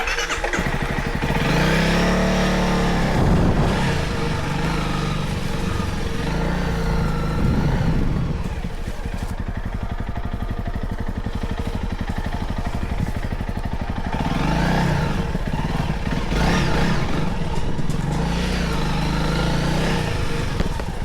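Motorcycle engine running, its pitch rising and falling several times as the throttle is opened and eased off, with steadier running in between.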